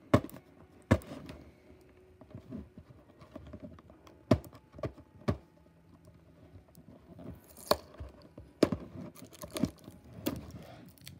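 Hands handling a cardboard webcam box and working at the tape that holds it shut: irregular taps and knocks on the cardboard, with a brief scraping rasp about seven seconds in.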